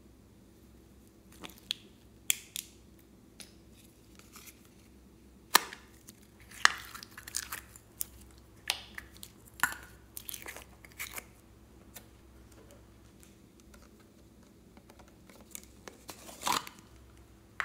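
Plastic slime containers being handled and opened, with sharp clicks and snaps, and glittery slime squelching and peeling off in sticky pulls as it is drawn out by hand into a bowl of slime. The sounds come in irregular short bursts with quiet gaps between them.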